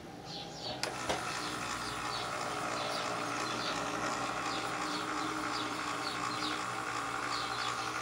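Small electric desk-fan motor, running with its blades removed: it starts about a second in and runs with a steady hum and whine. Hair is wound around its shaft and it still wants greasing; the owner finds it sounds strained.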